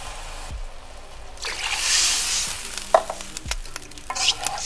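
A wooden spatula stirring beef slices in a soy-sauce broth in a hot wok. The liquid sizzles in swells, and the spatula scrapes and knocks against the wok a few times after about three seconds.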